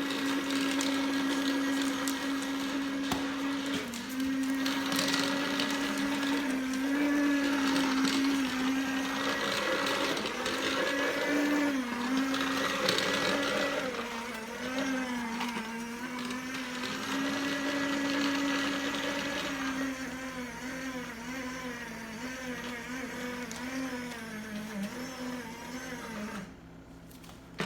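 Small electric motor whirring steadily for close to half a minute, its pitch wavering and dipping now and then. It gets quieter after about 20 seconds and cuts off sharply near the end.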